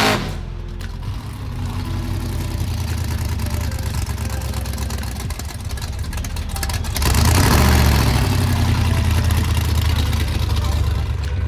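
Drag-racing car engines running at the strip: a steady low rumble that swells louder for a second or so about seven seconds in.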